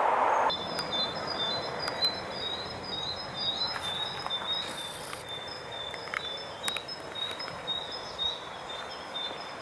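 Small woodland birds chirping: a steady run of short, high, repeated notes, with a few faint clicks.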